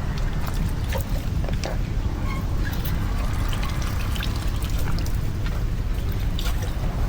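Floodwater pouring and splashing: a steady low rush of water with scattered short splashes and clicks.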